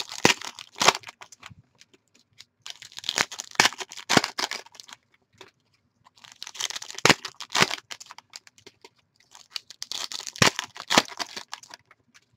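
Foil wrappers of Donruss basketball card packs being torn open and crumpled by hand, a crinkling and tearing that comes in four bouts with short pauses between them.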